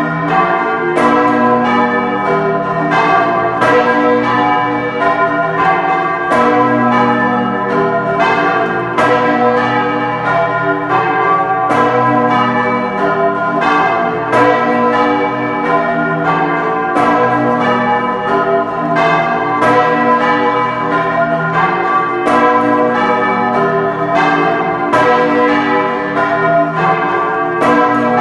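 The bells of San Pietro Cathedral in Bologna ringing as a peal, heard from inside the bell chamber close to the bells. Several large bronze bells strike in quick succession, about one or two strokes a second, their long ringing tones overlapping into a dense wash.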